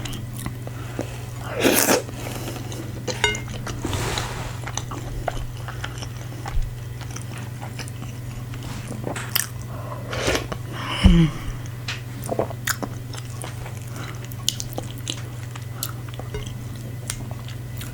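A person chewing and eating fufu with light soup and assorted meats close to the microphone: wet mouth sounds, bites and scattered small clicks over a steady low hum.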